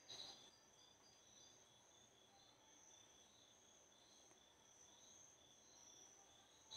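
Near silence, with only a faint, steady high-pitched cricket trill in the background and a soft knock just after the start.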